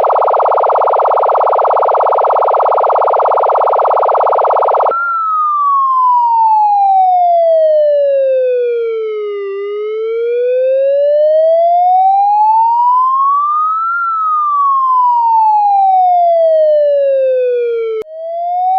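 Electronic emergency-vehicle siren sounds: a harsh, steady buzzing tone for about five seconds, then a slow wail that glides down and back up over several seconds each way. Near the end the wail cuts off briefly and starts rising again.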